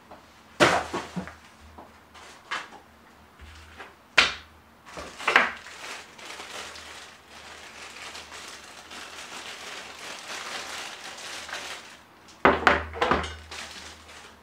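Unboxing handling noise on a desk: a few sharp knocks and thumps as items are put down, with a clear plastic bag rustling for several seconds in the middle. Near the end there is a quick run of knocks as the bagged power adapter is taken out and set down.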